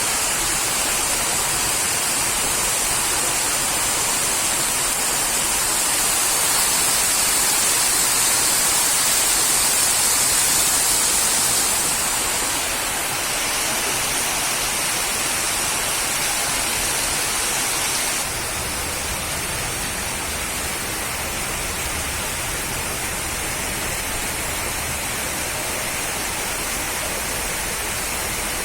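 Heavy rain pouring steadily in a dense, even hiss. About 18 seconds in, the sound changes abruptly and a low rumble joins beneath the rain.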